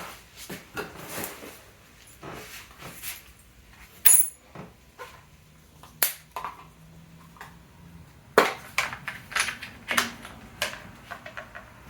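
Scattered small clicks and taps of batteries and the smart lock's plastic battery compartment being handled, with one sharp click about four seconds in.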